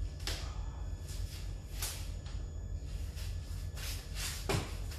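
Folding hand trolley being unfolded by hand: several separate clicks and clacks as its frame and handle are worked into place, over a steady low hum.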